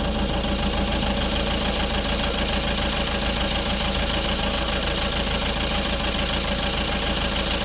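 Car engine idling steadily, an even low hum that does not change.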